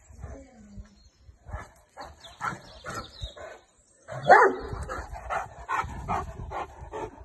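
A dog barking in a rapid series of short barks, with a brief pause just before the loudest bark about four seconds in.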